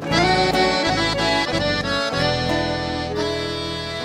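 Accordion playing a melodic instrumental fill, its notes changing quickly, over a live band's bass, guitar and keyboard accompaniment.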